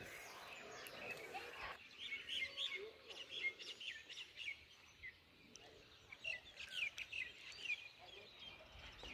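Small birds chirping: many short, high chirps, some dropping in pitch, heard faintly.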